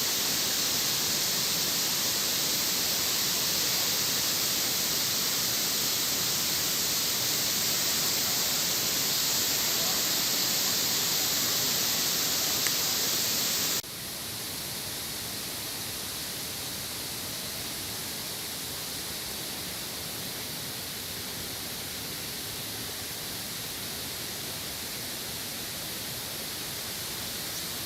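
Steady rushing of falling water from a waterfall, an even hiss that drops suddenly in level about halfway through.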